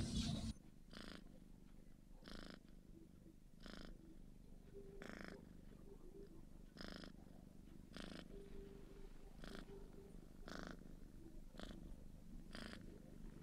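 Kitten purring softly, the rasp swelling in an even rhythm about every second and a half.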